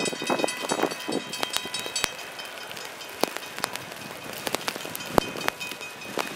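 Level-crossing warning bell ringing steadily while the last freight car's wheels rumble and clack off the crossing in the first second or so, with scattered sharp clicks.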